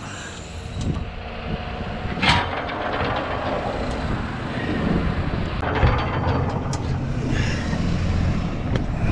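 Knocks and scraping of a manual tire changer's bead breaker being lined up on a motorcycle wheel rim, with sharp knocks about two and six seconds in and again near the end, over a steady low rumble.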